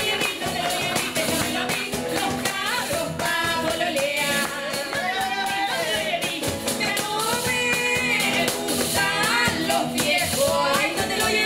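Chilean cueca played live: two women singing together, with an acoustic guitar strummed and a tambourine struck in a steady rhythm.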